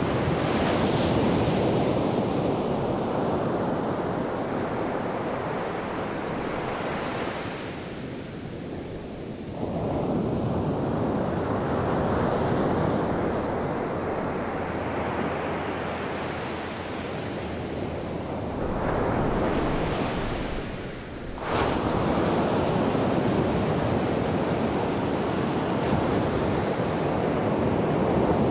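Atlantic Ocean surf: small waves breaking and washing up the beach in a steady rushing hiss that swells and eases every several seconds. About three-quarters of the way through, the sound drops away for a moment and comes back abruptly.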